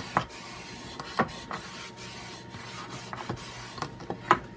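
A damp cloth rubbed back and forth over a chalk-painted wooden board, wiping the paint off; a steady scrubbing with a few sharp taps, the loudest near the end.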